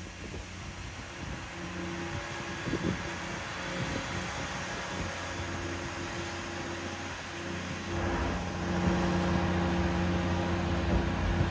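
Diesel engine of a Network Rail engineering train running steadily as the train passes below and moves off, a droning hum that grows louder about eight seconds in.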